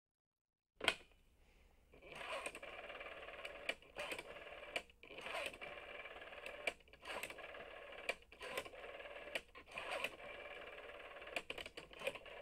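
Electronic sound effect for an animated logo: a sharp click, then a steady crackling, radio-like hum broken by irregular sharp clicks and pops, which cuts off near the end.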